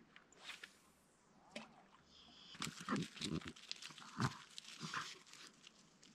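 A French bulldog snorting and snuffling in short bursts, with scattered clicks and scuffs.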